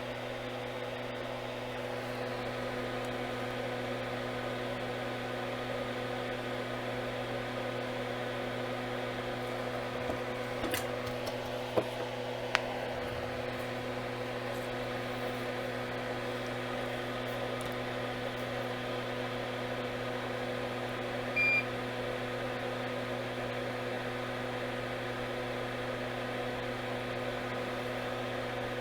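Steady electrical hum of workbench equipment, with a few faint clicks about ten to thirteen seconds in and one short high beep about twenty-one seconds in.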